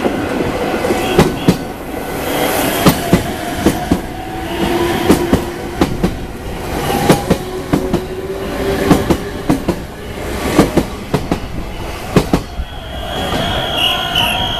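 Meitetsu train running past, its wheels clacking sharply over rail joints above a steady rolling rumble.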